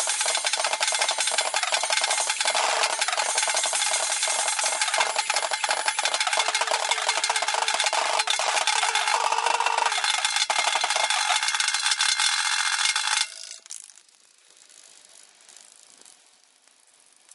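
Steel-shelled drum kit played in sped-up timelapse audio: a dense, rapid clatter of drum hits and cymbal wash. It cuts off abruptly about 13 seconds in, leaving only faint sound.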